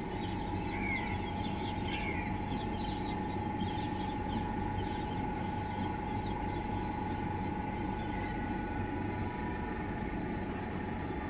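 Steady low rumble of a train rolling slowly along, heard from on board, with a constant high hum throughout. Birds chirp over it in roughly the first five seconds.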